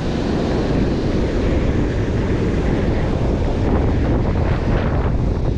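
Steady wind noise on the microphone, with surf breaking on the shore underneath.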